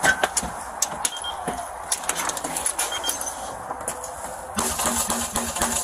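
Storm door being pulled open at a house's front entrance: a run of sharp clicks and light metallic clinks from its handle and latch, then a denser patch of rustling and clicking near the end.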